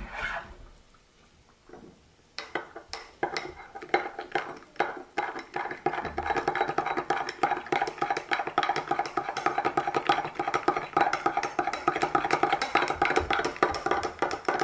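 A long metal spoon stirring instant rice latte into hot water in a glass tumbler, clinking rapidly against the glass, which rings. The stirring starts a couple of seconds in and keeps a fast, even pace. A single sharp knock comes right at the start.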